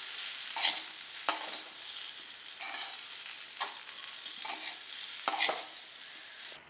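Boiled potato cubes sizzling in oil in a metal frying pan while a metal spoon stirs them, scraping against the pan every second or so. The stirring and sizzling cut off at the very end.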